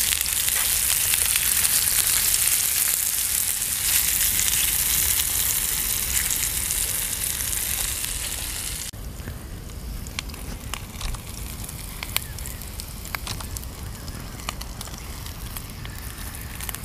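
Sausage slices frying in a small pan over a canister gas burner: a loud, steady sizzle. About nine seconds in it drops abruptly to a quieter sizzle with scattered pops and crackles.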